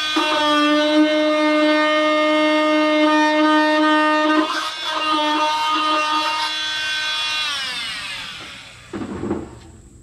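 Rockwell Sonicrafter oscillating multi-tool running with a loud, steady buzzing hum while its blade is held against the steel body panel, briefly faltering once or twice. Then it is switched off and its pitch slides down as it winds to a stop, followed by a short knock near the end.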